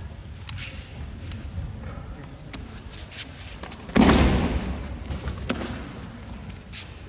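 Solo aikido jo staff kata: light scuffs and clicks of movement on the mat, then one sudden loud sound about four seconds in that dies away over about a second in the hall's echo.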